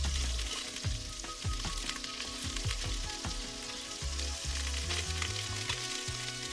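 Butter sizzling as it melts and foams in a stainless steel pot, stirred with a wooden spatula, with a few light scrapes and ticks. Soft background music with a low bass line plays underneath.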